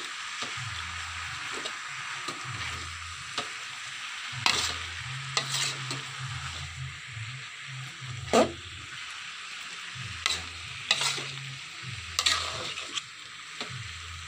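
Oyster mushrooms and tempeh sizzling in a hot wok, stirred with a metal spatula. Irregular sharp scrapes and knocks of the spatula against the wok sound over a steady frying hiss, the loudest about eight seconds in.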